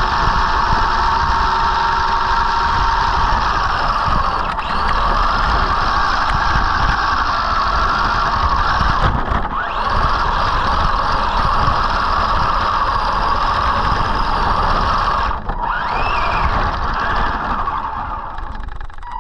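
Arrma Senton RC truck driving through snow: its electric motor and gears whine steadily, the pitch rising and falling with the throttle, over a rough low rumble. About three-quarters of the way through the sound drops out briefly and comes back with a rising whine.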